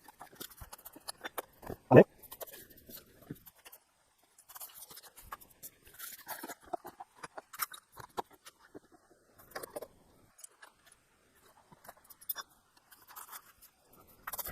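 Scattered handling noises of hands-on work: rustling, scraping and small clicks, with one sharp loud knock about two seconds in.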